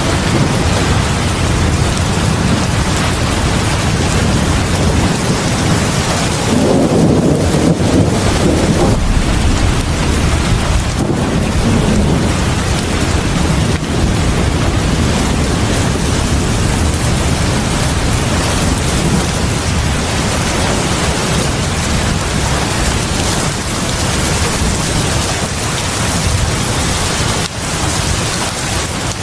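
Heavy rain pouring steadily onto the porch, a dense, even hiss, with a louder, deeper swell about seven seconds in.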